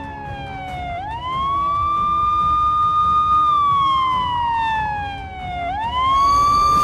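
Police siren wailing: a high tone holds, slides down slowly, then swoops back up, twice over. A rushing hiss rises near the end.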